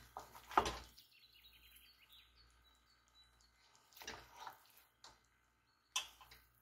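Kitchen utensils knocking against cookware: a loud knock with a short ring about half a second in, a cluster of knocks around four seconds, and a sharp knock near the end, with a run of faint high chirping tones in between.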